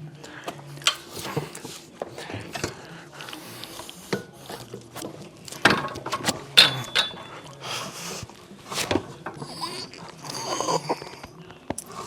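Gym weight equipment clicking and clanking through a set: irregular sharp knocks and mechanical rattles, the loudest about six seconds in.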